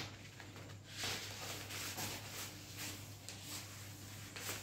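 Cloth wiping a whiteboard, a faint rubbing swish repeated in strokes about twice a second, starting about a second in.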